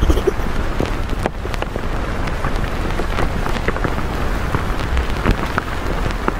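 Steady rain falling on a surface: an even hiss with many small drop ticks and a low rumble underneath.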